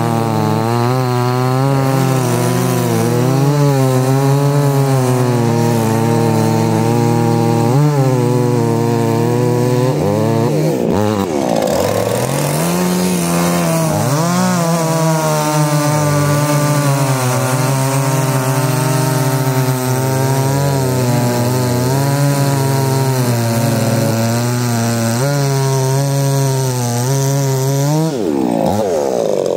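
Two-stroke petrol chainsaw cutting wood at high revs, its engine pitch wavering as the chain loads in the cut. About ten seconds in the revs fall away and climb back, and they drop off again near the end.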